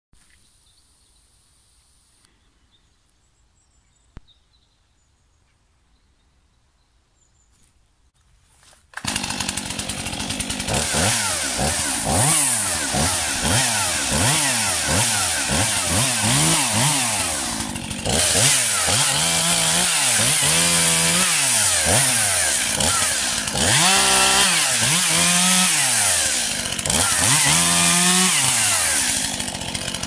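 Near silence with a single click, then about nine seconds in a Stihl MS 241 two-stroke chainsaw starts running loudly, its engine pitch rising and falling again and again.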